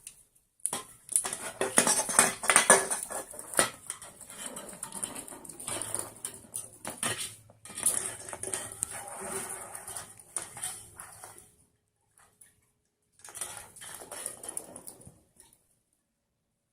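Dishes and metal cutlery clattering and clinking in quick, irregular runs. They stop for a couple of seconds near the end, then come back in a shorter run.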